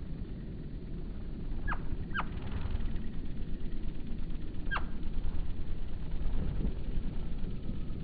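Hummingbirds at a nectar feeder: three short chirps, each sliding quickly downward, over a steady low rumble that grows louder a few seconds in.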